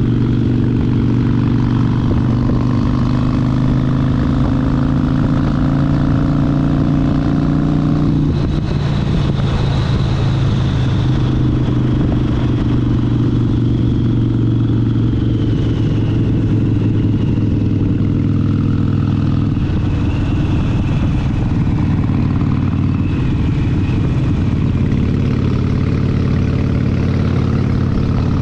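Harley-Davidson Sportster 72's 1200 cc air-cooled V-twin running under way, holding a steady note, with a brief break in the note about eight seconds in before it settles again.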